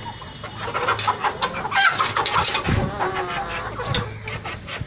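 A flock of young chickens clucking and calling in a coop: many short overlapping clucks, with a few longer calls near the middle.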